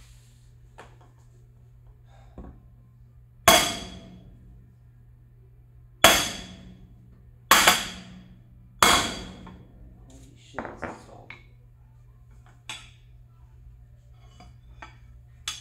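Four hammer blows, the third a quick double, driving a steel ball bearing into the aluminium motor side plate of a Begode Master electric unicycle, each blow ringing briefly. Lighter clicks and clatter follow as the plate and tools are handled.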